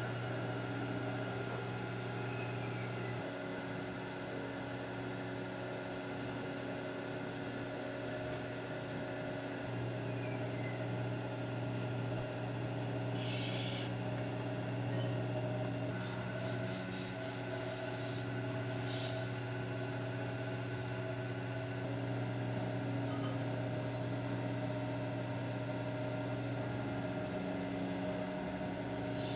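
Electric potter's wheel running with a steady hum while a clamped metal trimming tool shaves a clay earthenware lid. The scraping comes in short bursts around the middle.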